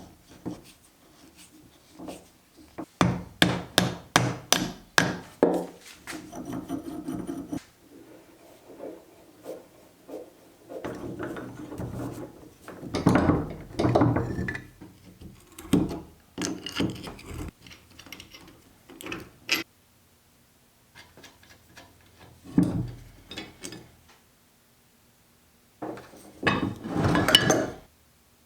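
A quick run of about eight hammer strikes on metal parts of a vise, then stretches of scraping, rubbing and clunking as the parts are worked and handled.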